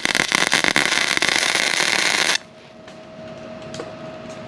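Arc welder crackling steadily as a weld is run over a leaking pinhole in the roller's metal drum. It cuts off suddenly about two seconds in, leaving a faint steady hum.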